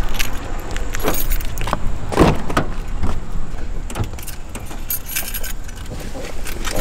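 Road noise inside a moving Subaru Crosstrek: a steady low rumble with irregular light clicks and rattles throughout.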